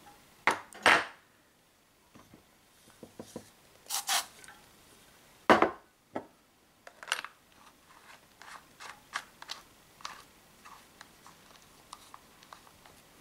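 Hand-handling of a CO2 air pistol and its parts: a few sharp knocks and taps of metal and plastic set down on a table, the loudest a little over five seconds in, then a string of small, light clicks as the pistol's grip is worked.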